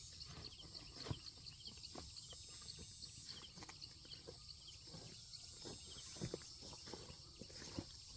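Quiet rural outdoor ambience: faint high chirps repeating steadily, with scattered light clicks and rustles.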